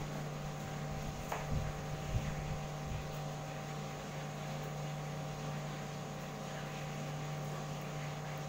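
Steady electric appliance hum with an even hiss behind it, with a few soft knocks of a knife on a plastic cutting board in the first three seconds as a tomato is sliced.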